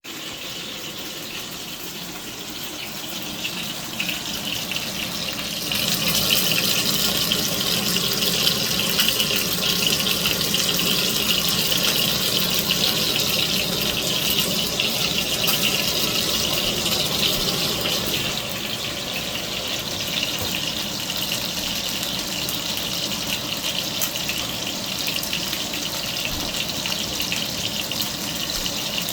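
Chicken frying in hot oil in a frying pan: a steady sizzle with dense crackling, growing louder about six seconds in and easing slightly about eighteen seconds in.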